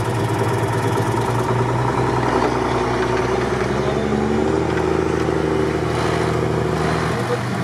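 Toyota Land Cruiser's engine working under load as the SUV churns through a muddy, water-filled rut, the revs rising about three seconds in as it pulls up out of the hole.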